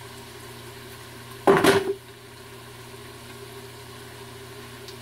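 A hand-held lemon squeezer pressing a lemon half over a food processor bowl: one short, loud squeeze sound about one and a half seconds in, over a steady low hum.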